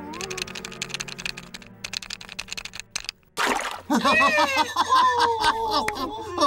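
Cartoon soundtrack: quick clicks over a low music note, then a short rush of noise about three and a half seconds in, followed by the nonsense-language babble of the claymation penguin and seal characters.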